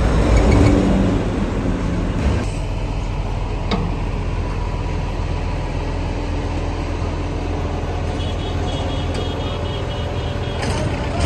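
Road traffic: steady vehicle engine and tyre rumble, louder as a vehicle passes in the first two seconds. There is a single sharp click near four seconds, and a short run of high pips a little past eight seconds.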